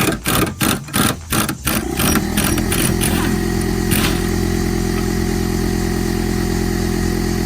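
Pneumatic impact wrench on a Jeep body-mount bolt, fired in short bursts about three times a second. From about two seconds in it gives way to a steady, even mechanical drone.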